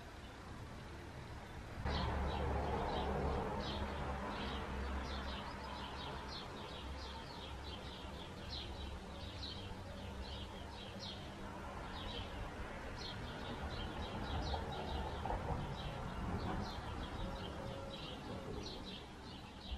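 Small birds chirping, many short quick chirps in a row, over a steady low background noise. The chirping starts about two seconds in and runs on.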